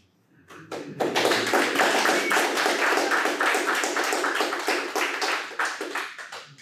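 Audience applauding: a few scattered claps, then steady clapping from about a second in that thins out near the end.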